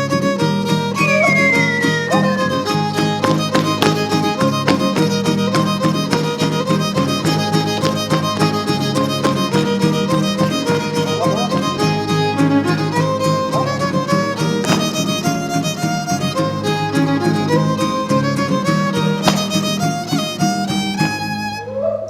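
A son huasteco trio playing an instrumental huapango passage: a violin leads with sliding, ornamented lines over steady rhythmic strumming of jarana huasteca and huapanguera. The music dies away at the end.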